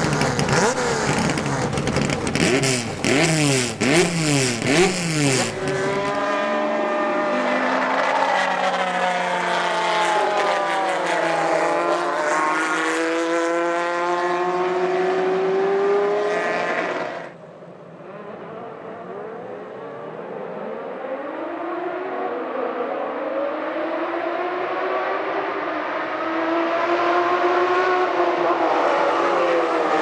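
Inline-six TC Bonaerense race car engines. First a close engine is blipped hard, several quick revs up and down. Then a field of cars accelerates away with rising pitch through the gears, and after a sudden drop about 17 seconds in, the pack's engines build again as it approaches.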